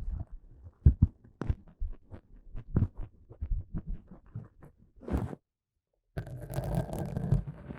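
Pipe cleaners (chenille stems) brushing and scratching against the microphone in short irregular strokes with soft muffled thumps. They stop about five and a half seconds in, and after a second's silence give way to a denser, continuous muffled rubbing.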